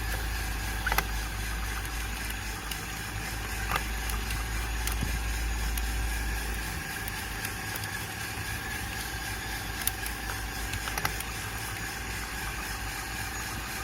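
Aillio Bullet R1 coffee roaster running steadily, its drum turning and roast fan blowing, with a few scattered sharp pops from the beans cracking late in first crack. A low hum underneath drops out about halfway.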